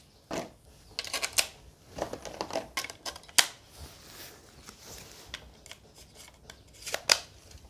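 Plastic clicks, taps and rustles of a pistol-grip RC transmitter being handled, several sharp clicks spread out with quiet between them.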